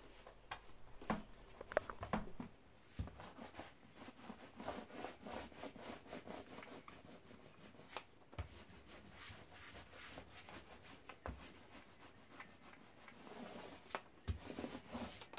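Faint rubbing and light clicking of a small dry paint roller being rolled over canvas on glued wooden tambour slats, with a few soft knocks.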